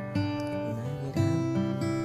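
Background music: acoustic guitar playing, with new notes struck about a second apart.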